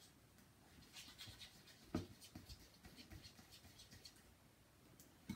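Faint scraping and light clicking of a utensil stirring soap-based slime in a ceramic bowl, with one sharper knock about two seconds in.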